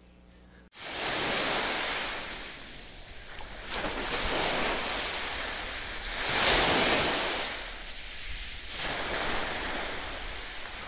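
Sea water splashing and washing in the shallows. It starts suddenly under a second in and swells and fades several times, loudest about two-thirds of the way through.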